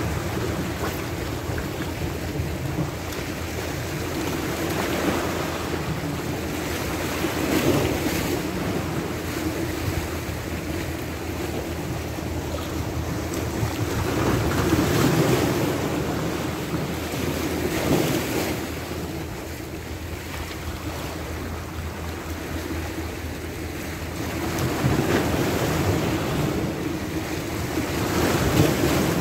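Sea waves washing in and breaking against shoreline rocks, the surge swelling and fading every few seconds, with wind rumbling on the microphone.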